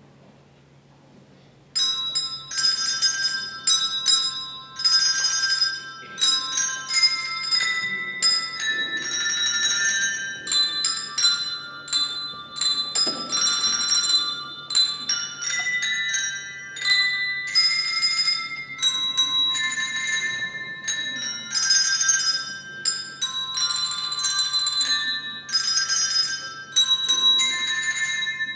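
Music played on bells: many quickly struck, ringing high notes forming a melody, starting about two seconds in.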